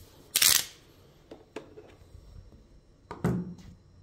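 Handling noises of tools and parts on a cloth-covered table: two short clattering rustles, one just after the start and a stronger one near the end, with a few small clicks between them.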